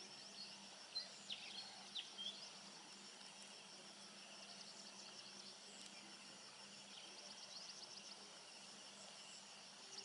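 Faint open-air ambience: scattered short bird chirps in the first couple of seconds and a steady high insect drone, with a quick trill past the middle and a faint low hum underneath.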